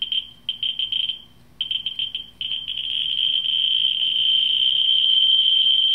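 Ludlum Model 3 survey meter's audio speaker, fed by a Model 44-9 pancake Geiger probe over uranium ore, clicking so fast that the clicks run together into stuttering bursts of a high tone. About two and a half seconds in, the bursts merge into one steady, louder tone as the probe nears the torbernite specimen: a very high count rate.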